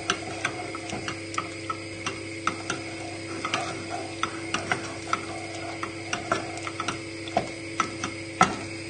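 Wooden spoon stirring a thick roux-and-milk paste in a saucepan, knocking and scraping against the pan in irregular clicks, a few each second, over a steady hum.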